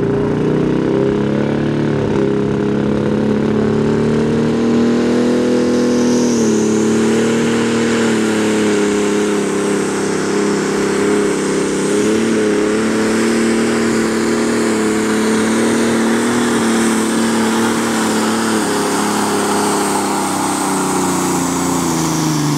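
Limited Super Stock pulling tractor's turbocharged diesel engine at full throttle under load during a pull. It climbs to a high, steady pitch in the first second, and a high whistle joins from about six seconds in. The pitch falls away at the very end.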